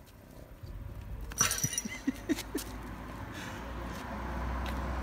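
A mouse gives one short, shrill squeak while a cat bats it about, followed by a few soft taps. A low vehicle engine rumble grows steadily underneath.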